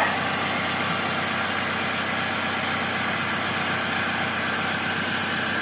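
Toyota Previa engine idling steadily.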